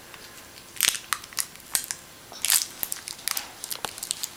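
Crinkly packaging of a toy surprise egg being handled and pulled at, giving short, irregular crackles spread through the few seconds.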